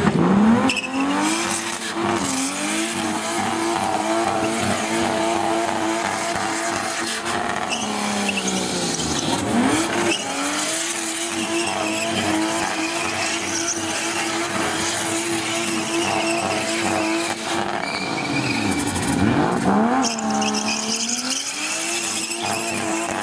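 Toyota Hilux's Nissan RB20 straight-six held at high revs in a burnout, the rear tyres spinning and squealing. The revs drop and climb back twice, about eight seconds in and again near eighteen seconds.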